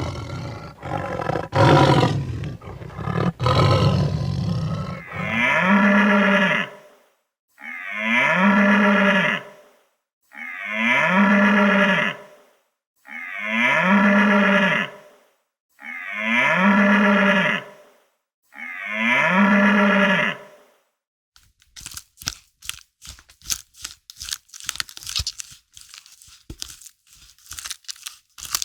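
A lion roaring for the first few seconds, then a cow mooing six times, long even calls about two and a half seconds apart. After that, a rapid crackling, crunching run of clicks fills the last seven seconds.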